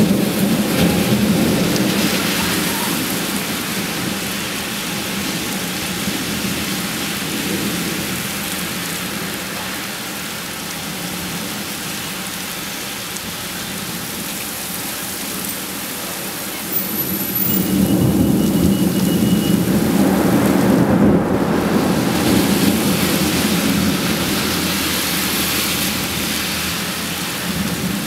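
Heavy rain pouring onto a city street in a thunderstorm, a steady hiss with rolls of thunder: one rumbling at the start, and a louder one that breaks in suddenly about 17 seconds in and rumbles on for several seconds.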